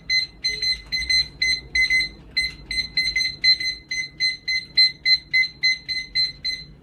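Digital timer beeping as its buttons are pressed to set a 1 minute 30 second rest countdown: a quick run of short, identical high beeps, about three to four a second.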